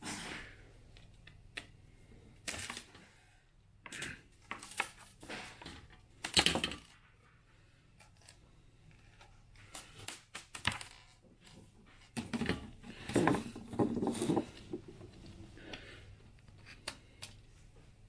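Scattered clicks, taps and rattles of a floor fan's wire grille and its small fittings being handled during assembly, with a busier stretch of rattling about twelve to fifteen seconds in.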